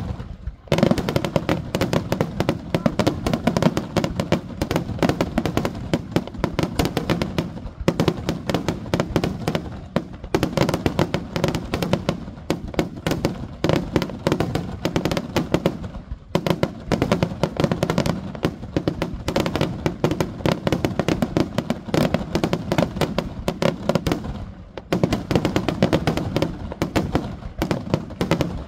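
Fireworks display: a dense, nonstop barrage of aerial shells bursting and crackling, many bangs a second, with a few brief lulls.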